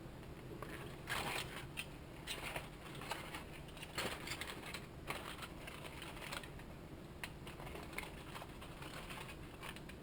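Faint, irregular crackling and crinkling from foil packets of baked trout as they are opened and checked for doneness. There are scattered sharp clicks over a low steady hum.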